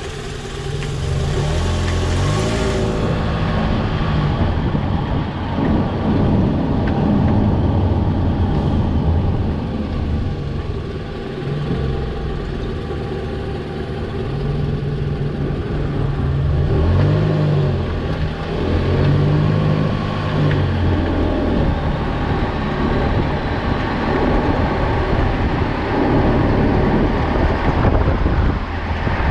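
Toyota Vanguard 240S's 2AZ-FE 2.4-litre four-cylinder petrol engine running and accelerating, its low note stepping up and down in pitch several times and growing louder about a second in.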